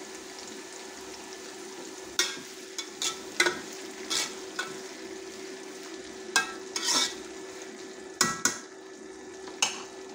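Sliced onions sizzling in hot oil in an aluminium pot while a metal spoon stirs them, knocking and scraping against the pot about nine times at irregular intervals, over a steady hum. The onions are being fried until they brown.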